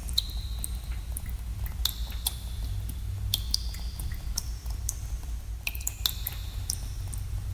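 Water drops falling in a cave, each a sharp plink with a short ringing note whose pitch varies from drop to drop, coming irregularly about one or two a second over a steady low rumble.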